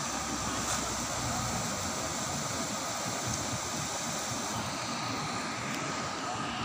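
A muddy river in flood rushing past in spate, a steady, unbroken noise of fast water.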